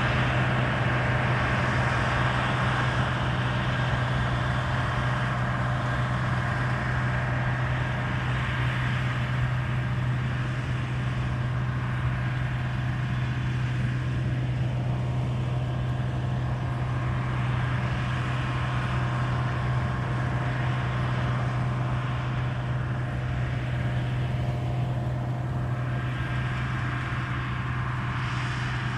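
Combine harvester harvesting oilseed rape, its engine running with a steady low hum under the broad noise of the machinery, growing a little quieter as it moves away.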